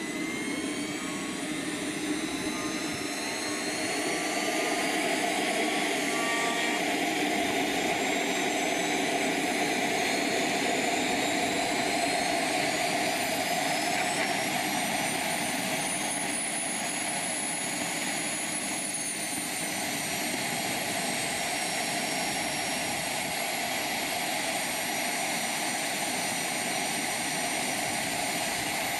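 Miniature gas-turbine engines of a large radio-controlled jet model spooling up: a high whine climbs steadily for about fifteen seconds, drops back a little and then holds as a steady high whistle over a constant rush of exhaust, the turbines settling at idle.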